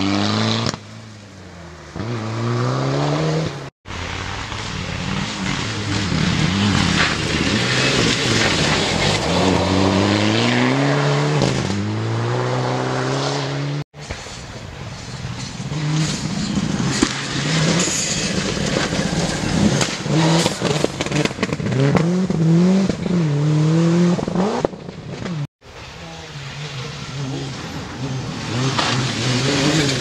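Rally cars passing one after another on a gravel stage, starting with a Mitsubishi Lancer Evolution. Their engines rev hard, the note rising and dropping again and again through gear changes, over the noise of tyres on loose gravel. The sound breaks off sharply three times as one car's pass gives way to the next.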